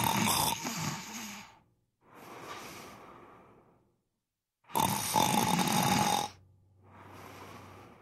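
A man snoring: two loud snores about four to five seconds apart, each followed by a softer breath out.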